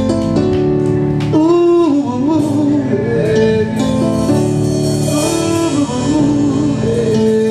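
Live reggae band playing, with bass, drums and a melodic lead line that bends and slides in pitch over the groove.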